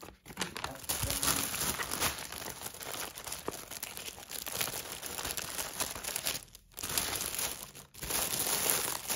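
Clear plastic packaging crinkling as it is handled: the small bags of diamond-painting drills and the sheet in its plastic sleeve. The crinkle breaks off twice briefly near the end.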